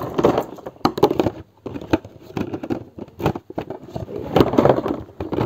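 Plastic toy pieces clicking and clattering as they are handled: the rings of a stacking-ring toy being picked out of a toy basket and put onto the stack.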